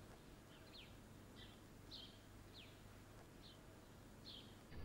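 Faint small-bird chirps over near silence: a string of short, high, falling chirps, roughly one or two a second.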